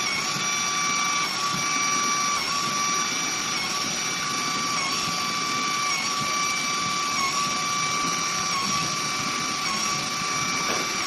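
CNC nesting router's spindle running with a high, steady whine, its pitch dipping slightly every second or so.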